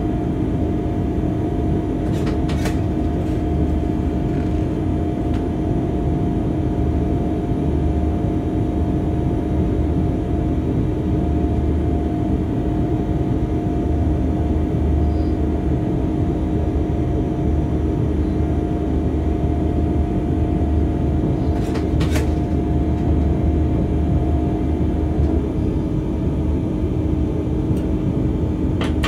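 Locomotive cab interior while running light along the track: a steady rumble with a constant hum, broken a few times by brief sharp clicks.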